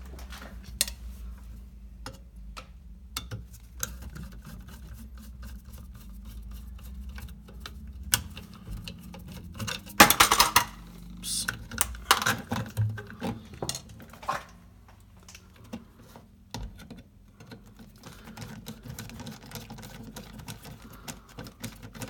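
Small metal clicks, taps and rattles of an old electrical receptacle being handled and its terminal screws worked loose with a screwdriver, with a louder burst of clattering about ten seconds in.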